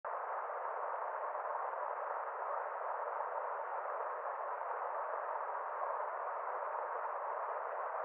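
Small woodland waterfall spilling into a shallow stream pool, making a steady, even rushing hiss with no deep rumble.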